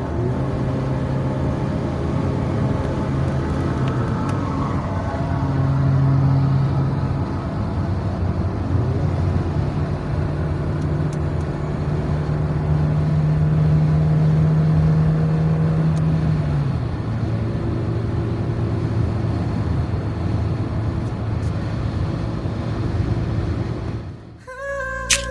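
Luragung Asri bus's diesel engine and exhaust, revved up and held, then eased back to a lower run. The revs rise briefly about five seconds in, and again from about nine seconds in for some seven seconds. The sound cuts off abruptly near the end.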